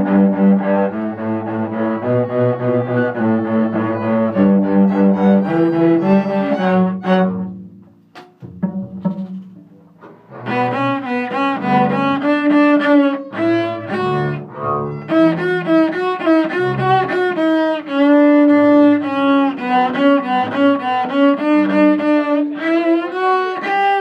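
Cello being bowed, playing a line of held notes that fades out about seven seconds in and starts again about three seconds later with a run of changing notes.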